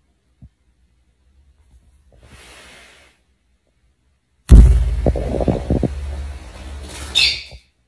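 Handling noise on the phone's microphone: a sudden loud thump a little past halfway, then heavy low rumbling and rubbing for about three seconds, with a brief higher squeak near the end. Before that there is only a faint, soft rustle.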